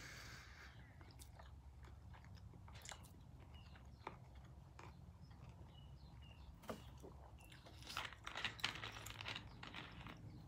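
Faint chewing of a crunchy tostada shell, with scattered crunches and soft clicks. A denser run of crackling clicks comes near the end.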